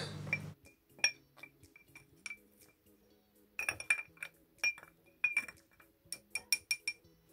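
Chunks of ceramic diesel particulate filter clinking against their container as they go back into the drain cleaner to soak: scattered sharp clinks with a brief ring, busiest about a second in, around the middle and near the end.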